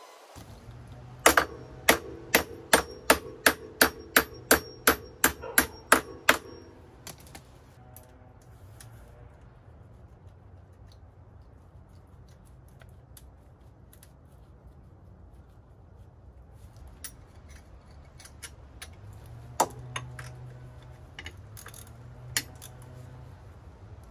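Hammer striking the steel hitch mount, about a dozen ringing metal-on-metal blows at about two a second, then stopping. After that come a few scattered knocks and clicks of metal parts being handled, over a low steady hum.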